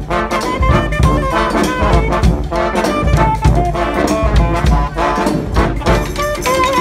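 A street brass band playing a bhangra-style tune: trombones, trumpets and saxophones playing melody lines over a steady drum beat.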